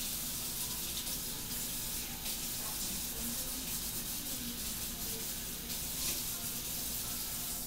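Water running steadily from a kitchen tap into the sink, with an even hiss that cuts off suddenly at the end as the tap is shut.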